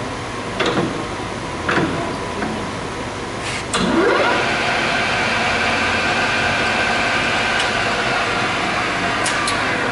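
SuperMax 13" x 40" gap bed engine lathe: two short clunks from the controls, then about four seconds in the spindle starts up, its gear whine rising in pitch and settling into a steady whine at about 1,000 RPM.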